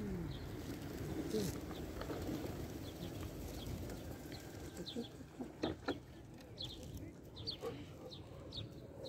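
Pigeons cooing softly, with scattered short high chirps and light clicks over a low steady rumble.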